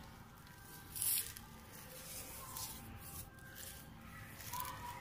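A hand pressing and smoothing dry sand in a plastic pot: a few soft gritty scrapes, the loudest about a second in.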